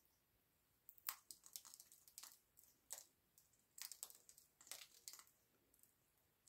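African grey parrot crunching a morsel held in its foot with its beak: a string of sharp, irregular cracks and crunches, the loudest about a second in, dying away after about five seconds.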